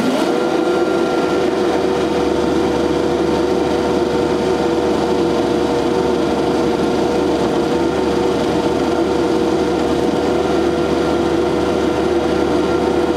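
SCL 1000 compact loader's engine revved up just as it sets off, then held at a steady high speed with an even drone while the machine drives.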